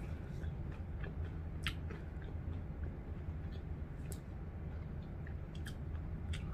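Faint close-up eating sounds: quiet chewing of crispy fried chicken, with a handful of sharp little clicks and crunches spread through, over a steady low hum.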